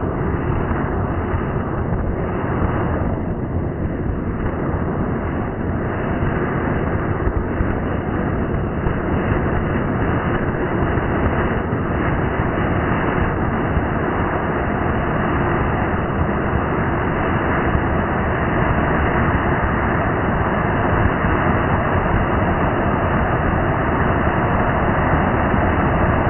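An anar fountain firework burning with a steady, loud hissing rush as its jet of sparks blasts against a brick, growing slightly louder toward the end.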